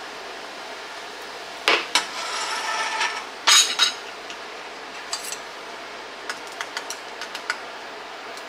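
Kitchen utensils clattering against glass canning jars and a pot while jars are topped up with sauce. There are two sharp knocks, then about a second of scraping with a faint ringing. A louder clatter follows, then a run of light taps and clinks.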